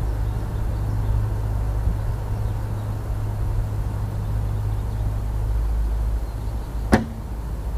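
Steady low rumble, and about seven seconds in a single sharp snap of a bow being shot.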